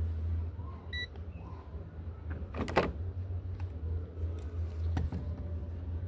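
A steady low hum throughout. A short electronic beep comes about a second in, and there is a sharp click near the middle and a smaller one later, as a washing machine door lock and multimeter test leads are handled.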